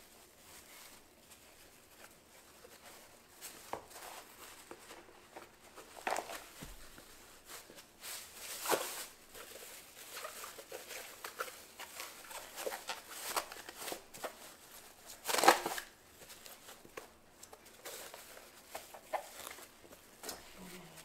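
Thin plastic bag crinkling and rustling irregularly as hands stretch a wet hat hood over a plastic-covered hat block, with louder crackles about nine seconds in and again near fifteen seconds.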